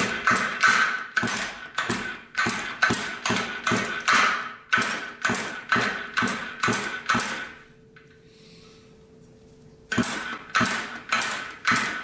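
Kickstarter of a Cobra CM50 50cc two-stroke dirt bike pumped over and over, about two strokes a second, spinning the engine over with the plug out. The strokes pause for about two seconds past the middle, then resume. This is a spark test in which the plug sparks only every few kicks: a weak, sporadic ignition spark.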